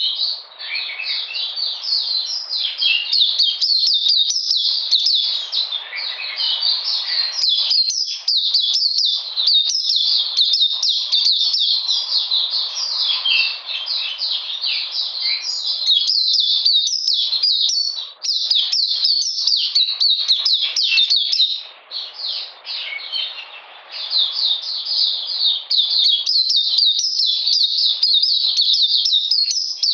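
Caged white-eye singing a long, rapid, high-pitched twittering song, with brief pauses about two-thirds of the way through.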